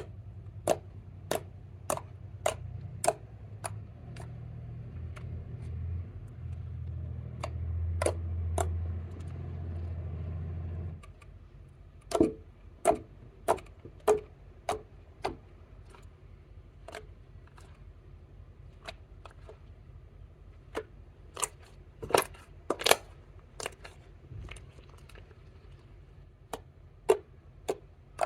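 Clear slime being kneaded and pressed by hand, giving a run of sharp sticky clicks and pops, about one or two a second with short pauses. A low rumble lies under the first part and cuts off suddenly partway through.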